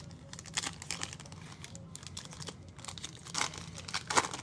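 Foil wrapper of a Panini Illusions basketball card pack crinkling and tearing as it is ripped open by hand, with louder crinkles about three and a half and four seconds in.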